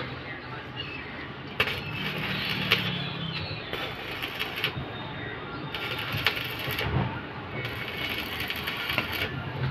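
Stick (arc) welding: the electrode rod burning against the steel of a tractor's hitch link, crackling and sizzling steadily, with a few sharper pops.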